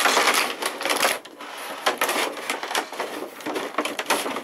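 Clear plastic packaging tray crinkling and crackling as it is pulled out of a cardboard box, a dense run of irregular crackles and clicks.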